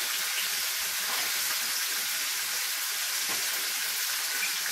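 Chicken legs sizzling in hot oil in a frying pan, a steady hiss as they are lightly browned.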